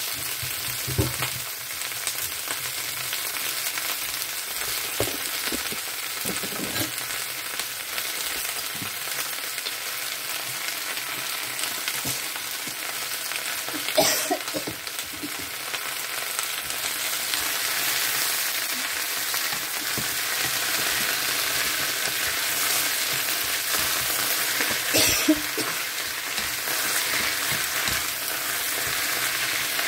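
Chinese kale (kana) stir-frying in a nonstick wok: a steady sizzle, with a few knocks and scrapes of the wooden spatula against the pan. A short louder burst about halfway through comes as oyster sauce goes onto the hot greens.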